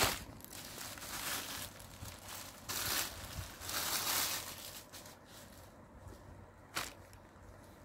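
Rustling and crinkling from the folded cloth being handled close to the phone's microphone, rising in several noisy swells. A sharp click comes at the start and another near the end.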